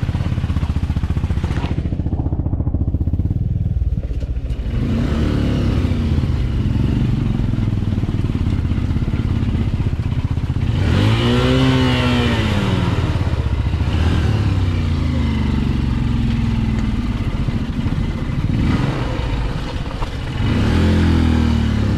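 Motorcycle engine running and being throttled on and off, its pitch rising and falling several times, with the biggest rise and fall about halfway through.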